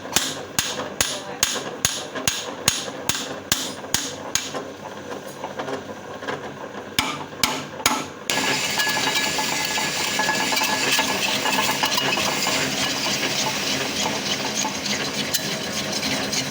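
Repeated hammer blows, about three a second, stopping after about four and a half seconds, with two more strikes a couple of seconds later. About eight seconds in, a loud, steady crackling noise starts abruptly and carries on.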